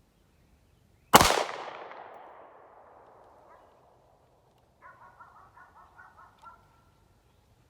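A single 9mm shot from a Glock 43 subcompact pistol, fired one-handed off the draw, loud and sharp with a long echoing decay. A few seconds later comes a quieter string of short, rapid high-pitched chirps.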